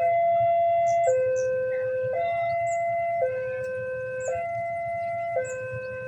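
Railway level-crossing warning alarm sounding its two-tone electronic signal, a higher and a lower tone alternating about once a second and slowly getting quieter; it warns that a train is approaching the crossing.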